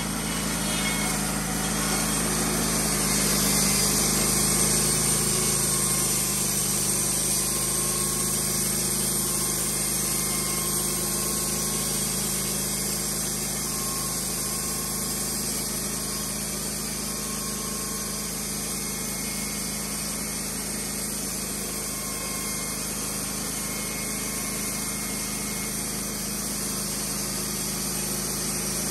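Wood-Mizer LT15 Wide bandsaw mill running steadily, its engine under load as the power-fed band blade saws lengthwise through a white oak log in one continuous pass. A little louder a few seconds in, then even.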